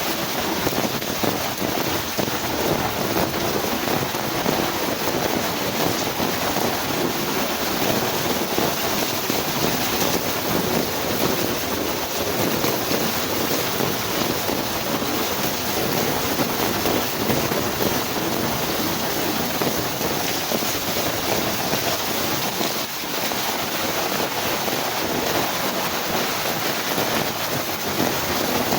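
Heavy rain pouring down in a strong windstorm: a steady, dense hiss of rainfall with wind, unbroken and even throughout.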